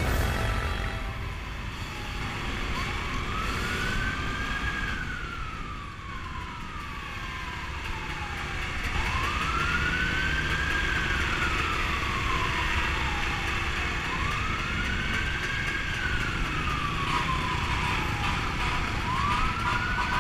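Siren in a slow wail, rising and falling four times about every five to six seconds, over the steady noise of dirt-bike engines and wind.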